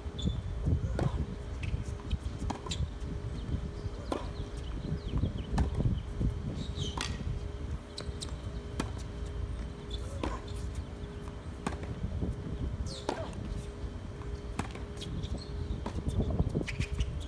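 Tennis ball struck by rackets and bouncing on a hard court during a rally: sharp pops one every second or two, over a steady low rumble.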